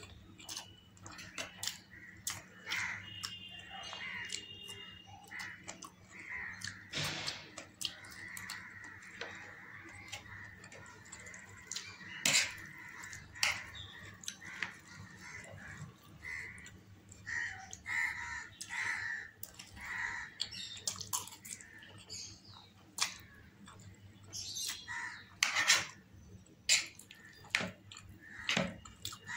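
Close-up eating sounds: instant noodles slurped and chewed, with a metal spoon clicking and scraping on a ceramic plate. A bird calls repeatedly in the background.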